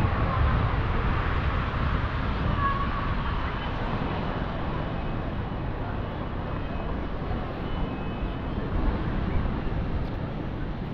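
Steady outdoor city street ambience: road traffic noise with faint voices of passers-by.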